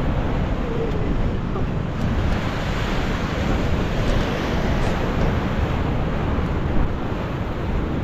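Rough storm surf washing against the sea wall in a continuous wash of noise, with wind noise on the microphone.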